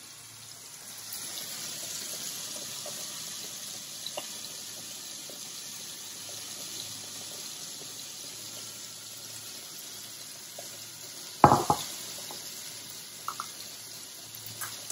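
Crushed peppercorns being shaken through a fine mesh sieve onto a plate: a steady, sandy hiss that begins about a second in, with faint small ticks and one sharp knock about eleven seconds in.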